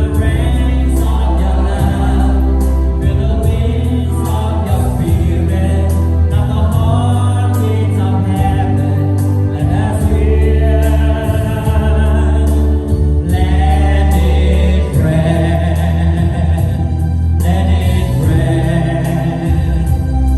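Gospel-style worship music: a choir singing held lines over a heavy bass, with a drum beat ticking on the cymbals.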